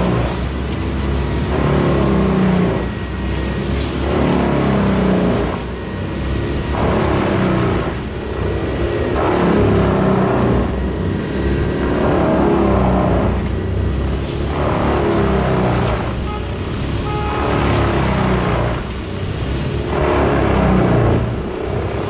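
Diesel engines of heavy tree-removal equipment (a boom crane truck and a compact track loader) running, their sound swelling and easing in a regular pulse about every second and a half as they work.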